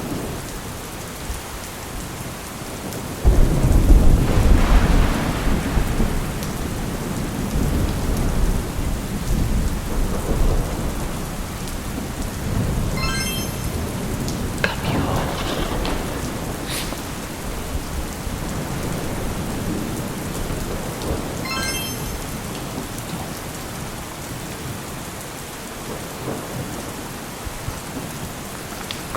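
Steady rain with thunder: a roll of thunder breaks in suddenly about three seconds in, rumbling loudly for a few seconds before fading back under the rain.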